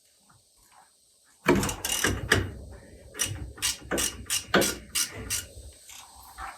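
A socket ratchet being worked on the truck's fasteners: a burst of rapid ratcheting starts about a second and a half in, then goes on as sharp clicks two to three a second.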